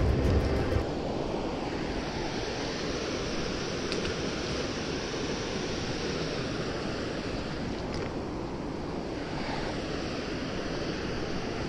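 Steady rush of water flowing down a concrete canal. Background music stops about a second in.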